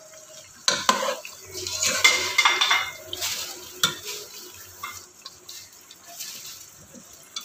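Wooden spoon stirring sliced onions frying in ghee in a non-stick pot, with irregular scrapes and knocks of the spoon against the pot.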